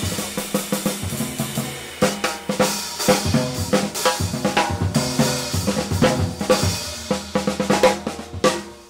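Jazz drum kit playing a solo: busy snare and bass-drum figures with rimshots and cymbal and hi-hat strokes. It tapers off near the end.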